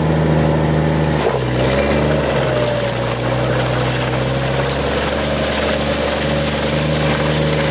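An off-road 4x4's engine running under load at steady revs while its wheels spin in deep snow, with a brief change in revs about a second in.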